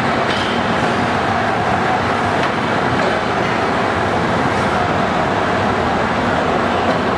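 Wuppertal Schwebebahn suspended monorail train running, a steady, unbroken rolling and rumbling noise.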